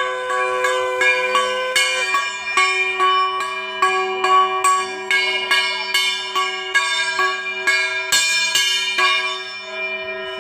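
Brass puja hand bell rung steadily during the worship, about two to three strikes a second, its ringing tones overlapping, until the ringing eases off near the end.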